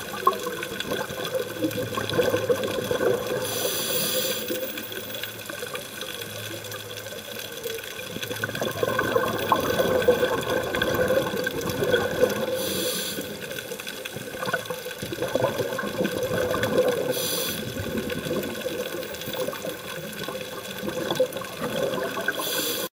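Scuba breathing heard underwater: a short hiss of inhalation through a regulator a few times, each followed by long stretches of bubbling and gurgling from the exhaled air.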